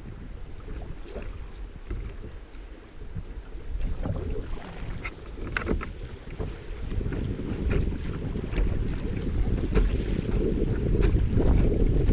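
River water rippling and splashing against a kayak drifting through a shallow riffle, with wind rumbling on the microphone. The splashing grows louder over the second half.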